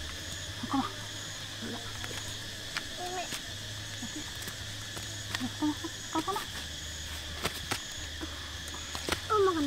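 Steady outdoor chorus of crickets and other insects, with a short high chirp repeating about once a second. Occasional light clicks and knocks come through as fruit is picked up from the grass and dropped into a woven basket.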